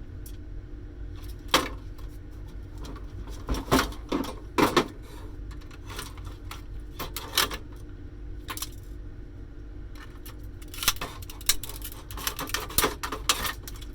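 Metal and plastic parts of a dismantled electronic cash register being handled and set down: scattered clicks, knocks and rattles, busiest about four seconds in and again from about eleven seconds.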